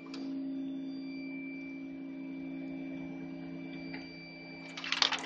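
A small electric motor running with a steady hum that starts with a click, with a short burst of clicking near the end.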